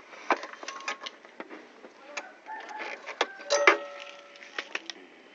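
Irregular clicks, knocks and rattles from scooter plastic parts and a cable being handled, with a few short squeaks in a louder cluster about three and a half seconds in.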